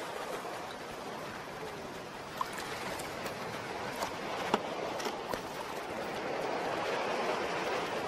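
Surf washing in over a sandy beach: a steady hiss of moving water that swells slightly toward the end, with a few faint ticks.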